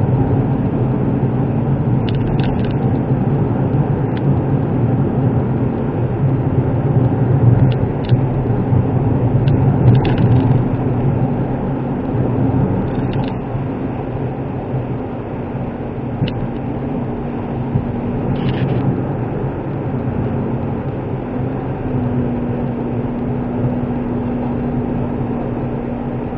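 Inside the cabin of a Suzuki Wagon R (MH23S) cruising on a country road: the steady hum of its small three-cylinder engine with road and tyre noise, and a few faint light ticks.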